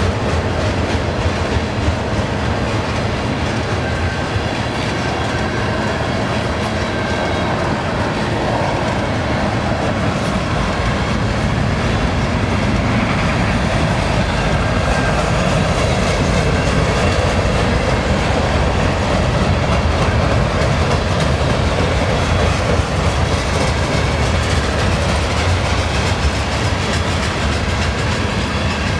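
Freight train cars (tank cars and a gondola) rolling past: the steady rolling noise of steel wheels on the rails.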